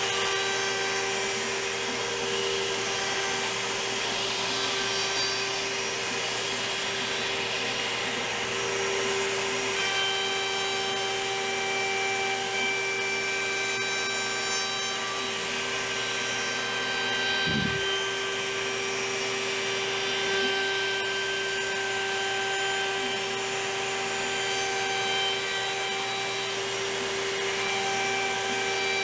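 Large gantry-style CNC router's spindle running with a steady whine as its bit mills padauk hardwood at a conservative 100 inches per minute, together with the steady rush of a vacuum hose drawing up the chips.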